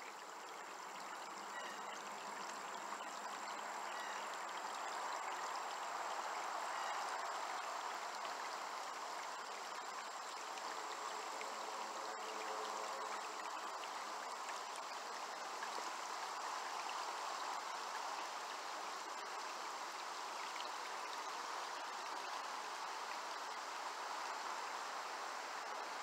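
Shallow creek water flowing and rippling over stones: a steady, even rush of water.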